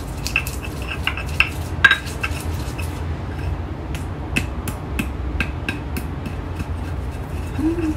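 Stone pestle grinding and knocking in a flat stone mortar (Indonesian ulekan and cobek), crushing chilies and lumps of palm sugar for rujak sauce. Irregular sharp clicks and knocks, a few a second, over a steady low hum.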